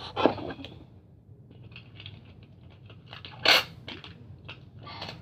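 Cardboard and craft pieces being handled: scattered short rustles and clicks, with one louder crunch about three and a half seconds in.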